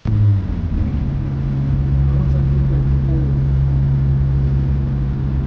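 A vehicle engine running steadily with a low hum, which cuts in suddenly at the start.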